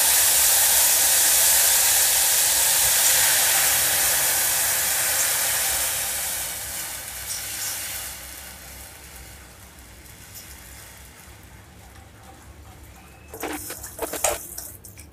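Tomato juice poured into hot oil and spluttered mustard seeds in an aluminium kadai, sizzling and hissing loudly as it hits the oil. The sizzle dies down over about eight seconds as the liquid cools the pan, and a few short knocks sound near the end.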